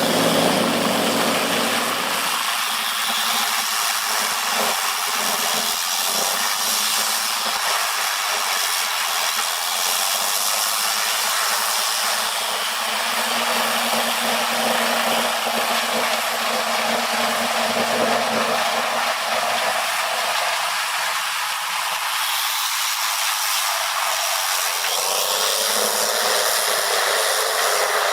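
Heavy wood-processing machinery running: a steady engine with mechanical grinding noise that shifts in character a couple of seconds in and again near the end.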